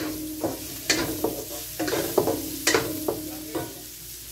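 Wooden spatula stirring diced onions and garlic sizzling in oil in a nonstick wok, with repeated sharp knocks of the spatula against the pan, each followed by a brief ringing of the pan, over a steady frying hiss.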